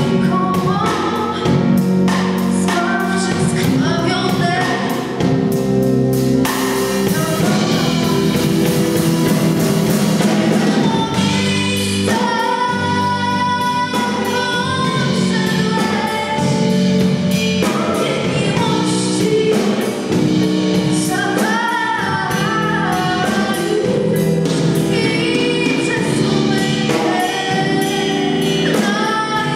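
A female singer performs a Christmas carol (kolęda) into a microphone, backed by an amplified live band.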